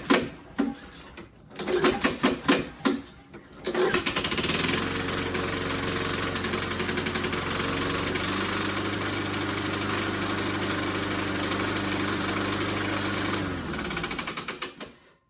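Honda engine on a walk-behind lawn mower being pull-started: a few short sputtering pulls, then it catches about four seconds in and runs steadily for about ten seconds. It then slows down with a string of knocks and stops shortly before the end.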